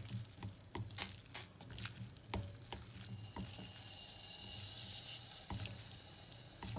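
Chopsticks clicking and knocking against a bowl while tossing wet, drained instant noodles in sauce, with soft wet stirring sounds. About three seconds in the clicks give way to a steady soft hiss for a couple of seconds.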